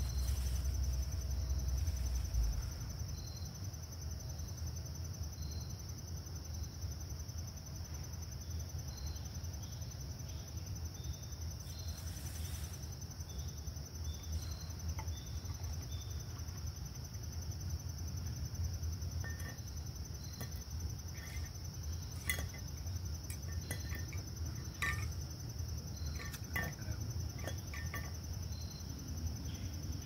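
Steady high-pitched chorus of insects trilling continuously, over a low rumble. Scattered small clicks and rustles in the second half.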